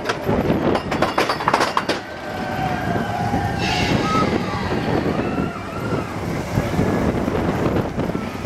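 Vekoma roller coaster train running along its steel track: a fast, dense clatter of wheels for the first two seconds, then a steady rumble.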